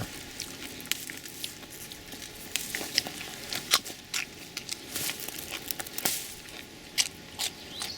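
Plant foliage rustling with scattered small snaps and crinkles, pea pods being picked from the vines.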